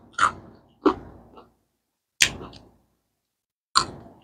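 Close-miked crunchy chewing: four sharp crunches at irregular intervals, each fading quickly.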